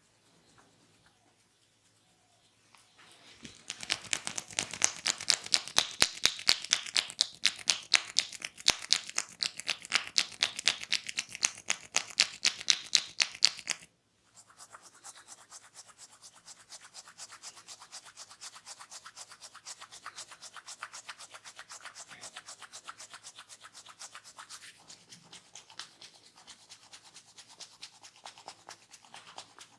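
A barber's hands rubbing quickly and rhythmically on skin during a massage, several strokes a second. The strokes are loud for about ten seconds, stop suddenly, then carry on more softly.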